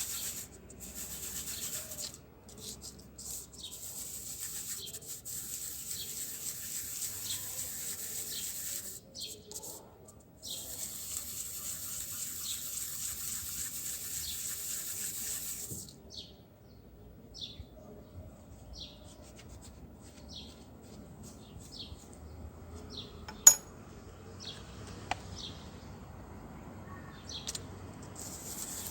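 Moser hair clipper blade rubbed back and forth on a flat abrasive to sharpen and level its teeth: a steady scraping hiss in long stretches that stops about 16 seconds in. Quieter handling follows, with one sharp click.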